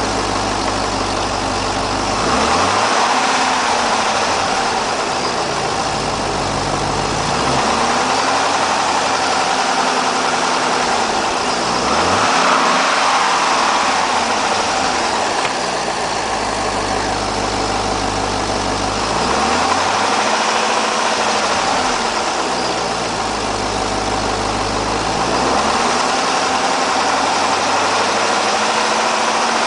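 Chevrolet Corvette C6's LS2 V8 running, revved up and held for a few seconds several times, dropping back to idle in between. It is being checked for a suspected rod knock.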